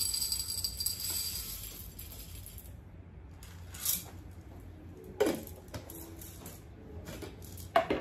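Whole coffee beans poured from a canister into a small glass bowl on a kitchen scale, rattling for the first few seconds, followed by a few single clicks as the pouring stops.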